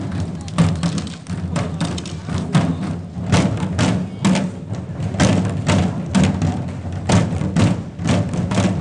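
Shishi-odori deer dancers beating the drums worn on their chests, a troupe striking together in a driving rhythm of about two strong beats a second with lighter strokes between.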